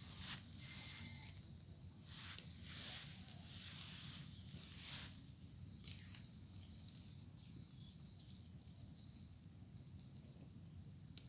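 A steady, high-pitched insect trill, with short rustling strokes in the first half.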